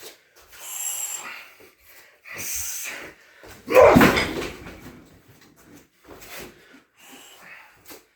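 Muay Thai shin kick: two sharp hissing exhalations, then a heavy shin strike landing on a Thai pad strapped to a car tyre about four seconds in, the loudest sound, followed by softer breaths and rustles.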